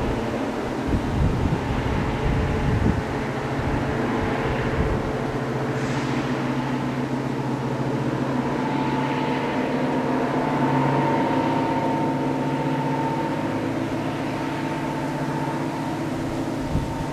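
Diesel locomotive engine running, a steady drone with a higher whistling tone joining about nine seconds in. A few low thumps in the first three seconds.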